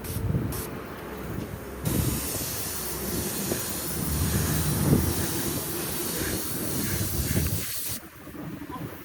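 Compressed air spraying in a steady hiss: a few short bursts, then one long spray of about six seconds that cuts off sharply near the end.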